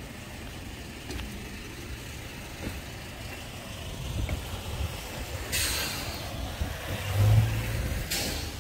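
A motor vehicle running on the road with a low rumble. It gives two short bursts of hiss, about five and a half and eight seconds in, and a brief low hum between them.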